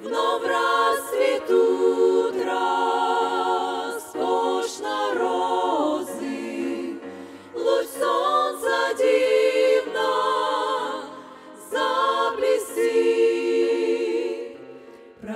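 Women's vocal group singing a cappella, with vibrato, in phrases separated by short breaths.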